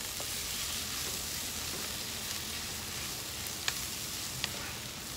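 Diced potatoes with canned tuna sizzling steadily in a frying pan as they are stirred with a wooden spoon, with two sharp taps a little past halfway.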